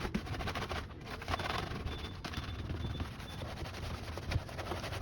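Rapid, irregular clattering of clicks and knocks from objects being handled while a fridge is cleaned out, with a louder knock near the end.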